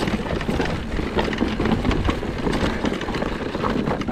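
Mountain bike riding down a dirt trail: a steady, noisy rumble with many small clicks and rattles from the bike over the ground.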